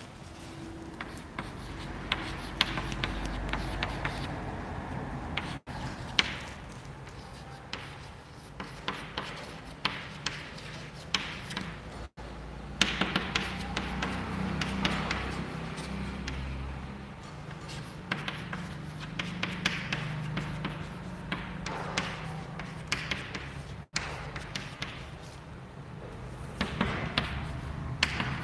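Chalk writing on a chalkboard: a long irregular run of short taps and scratches as letters and symbols are written, over a low steady hum.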